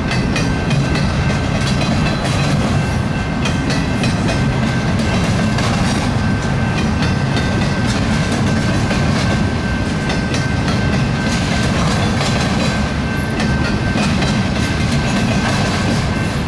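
Double-stack intermodal well cars of a freight train rolling past: a steady rumble with the wheels clicking over the rail joints, and a thin steady high tone running over it.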